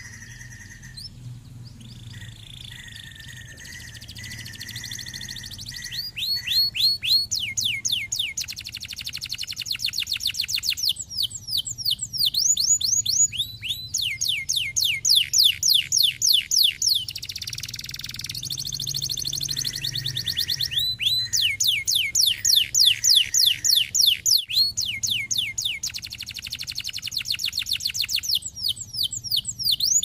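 Orange canary singing: after several seconds of softer whistled notes, it breaks into loud, very fast trills of repeated down-sweeping notes, in phrases of one to three seconds with short pauses between.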